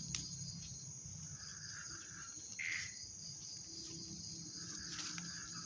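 Night chorus of crickets: a steady, high, pulsing trill, with a lower insect buzz that swells and fades. One short, louder chirp sounds about two and a half seconds in.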